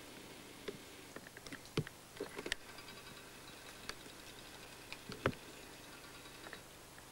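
Irregular crackles and snaps of dry twigs and pine litter, as from footsteps moving through brush, with two louder sharp cracks about two and five seconds in.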